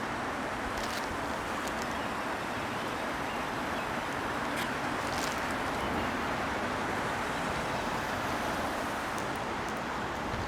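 Steady rushing of storm runoff water pouring down a drain channel after days of torrential rain.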